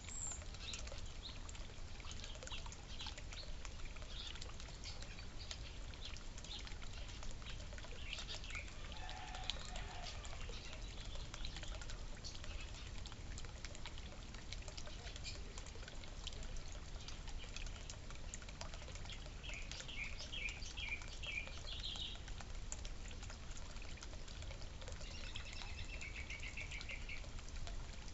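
Small birds chirping and calling at a feeder, with quick runs of short repeated notes about two-thirds of the way in and again near the end, over scattered soft clicks and the steady trickle of a water fountain.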